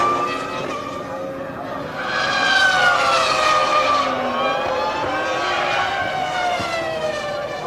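McLaren Mercedes 3.0-litre V10 Formula One engine at high revs, its high-pitched wail dropping sharply in pitch as the car passes just before the start and rising to its loudest again about two to three seconds in. Its pitch then falls in long sweeps.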